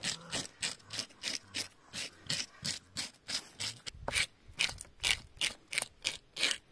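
A hand fish scaler scraping the scales off a pike in quick, even strokes, about four a second.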